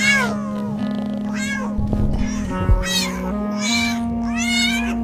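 Kittens meowing several times in short calls over background music of held notes.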